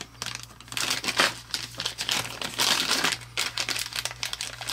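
Plastic parts bag crinkling as it is handled and rummaged through, in a dense irregular crackle, over a steady low hum.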